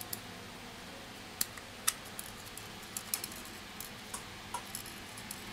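Scattered light clicks and taps, about a dozen at an irregular pace, from fingers handling and pressing a smartphone's plastic back cover and fingerprint sensor, over a faint steady hiss.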